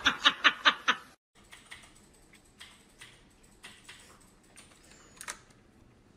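Laughter that cuts off about a second in, then faint, scattered clicks of computer keyboard keys being pressed by a cat lying across the keyboard, with one sharper click near the end.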